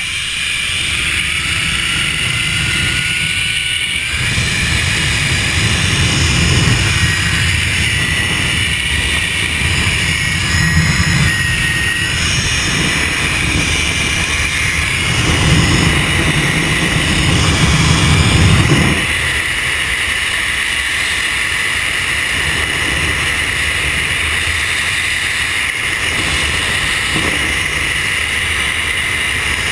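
Zip-line trolley (ZipTour) running fast along a steel cable: a steady high whine from its pulleys, rising in pitch over the first few seconds, over wind rushing on the microphone. The wind rumble is loudest for a few seconds past the middle.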